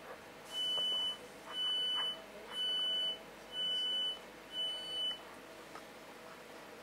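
Train door-closing warning: five high, steady beeps, each about half a second long, sounding about once a second, with the last one shorter and broken.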